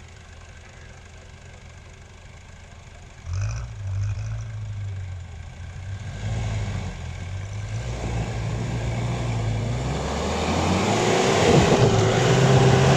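Jeep Cherokee XJ engine running low, then about three seconds in it revs up sharply and keeps revving and easing off under load as the Jeep climbs a muddy rut. It grows steadily louder toward the end, with rising noise of the tyres churning mud.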